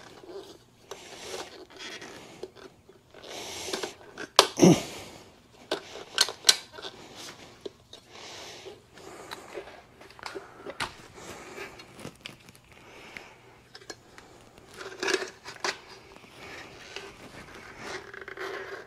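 Hands fitting the chrome trim ring onto a motorcycle's LED headlight: scattered clicks, knocks and scrapes of metal parts, with soft rustling between them. The loudest knock comes about four and a half seconds in.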